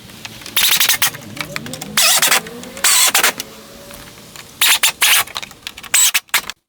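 Handheld cordless power tool, such as an impact driver or electric ratchet, run in five short bursts with a motor hum rising and falling between them, working a headlight-assembly mounting bolt.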